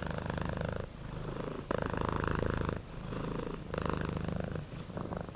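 Domestic cat purring steadily, the purr swelling and easing in alternate phases about a second long as the cat breathes in and out.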